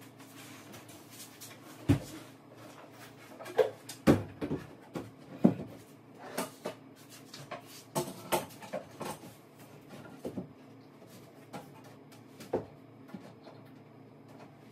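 Irregular wooden knocks and clatters, the sound of cabinet boxes and tools being handled and bumped during cabinet installation. The loudest come about two, four and five and a half seconds in.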